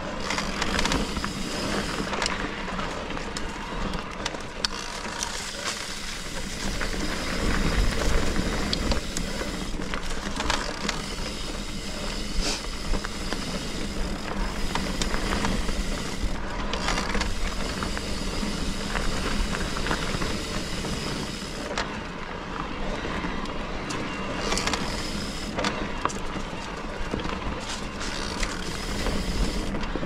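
Trek Rail 7 electric mountain bike being ridden on a dirt trail: steady rolling and rattling noise from tyres and bike, with scattered sharp knocks from bumps.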